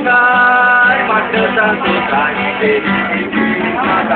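Music with acoustic guitar, opening on a long held note and then moving on through changing notes.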